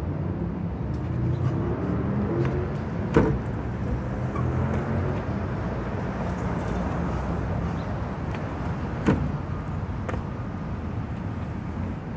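Road traffic: a car engine running by on the street, with two sharp thumps about six seconds apart from feet landing during burpees and box jumps.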